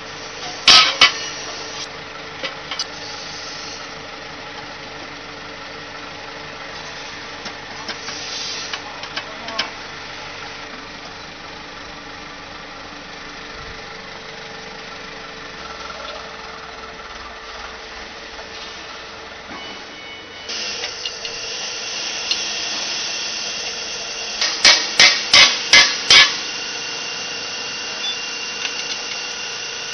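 Sharp metal-on-metal knocks from tools working on a flat die pellet mill's parts during assembly: two knocks about a second in and a quick run of about six near the end. Under them a steady mechanical hum runs throughout, growing louder and hissier about twenty seconds in.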